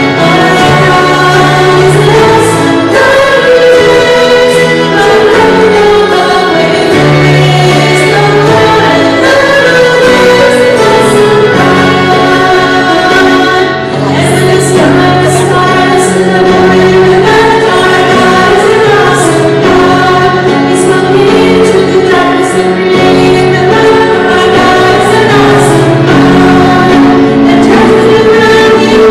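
Background music: a choir singing a sacred song over a steady accompaniment.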